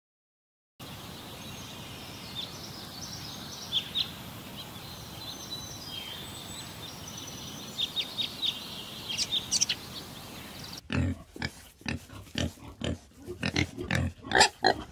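A steady outdoor hiss with scattered high chirps, then, about eleven seconds in, an animal grunting in a quick run of short, low grunts.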